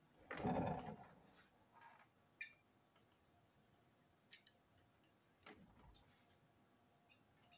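Small plastic toy train parts being handled: a short rustle within the first second, then a few faint, separate clicks.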